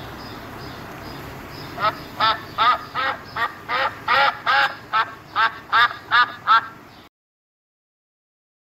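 Mallard duck quacking in a steady series of about a dozen loud quacks, two to three a second, over a low steady background hiss; the sound cuts off suddenly about seven seconds in.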